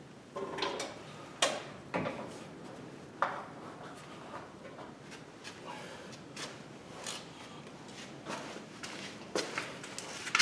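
Scattered knocks, clicks and clunks of parts being handled under the hood as the old radiator of a Chevy 2500HD pickup is unbolted and lifted out: a few sharp knocks in the first few seconds, quieter handling noise, then more knocks near the end.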